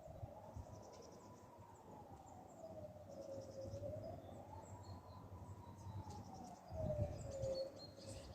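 Distant civil-defence warning sirens sounding the Swiss general alarm: a wailing tone that slowly rises and falls, about one full rise and fall every four seconds. Birds chirp faintly.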